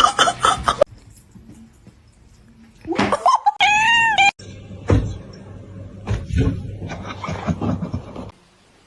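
An animal's single long call, rising then falling in pitch, about three seconds in.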